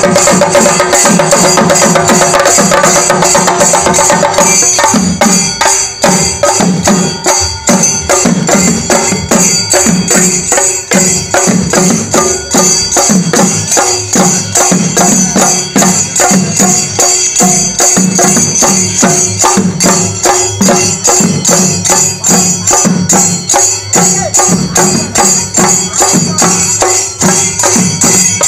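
Chenda melam: several Kerala chenda drums beaten fast and loud with sticks, with ilathalam hand cymbals clashing steadily over them. About four seconds in the rhythm shifts to a heavier pulse about twice a second under the rapid strokes.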